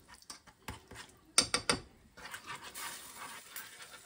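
A utensil clicking and scraping against a non-stick saucepan as a flour roux is stirred into a paste with chicken stock, with a quick cluster of louder clacks about one and a half seconds in, then a soft steady hiss from the hot pan.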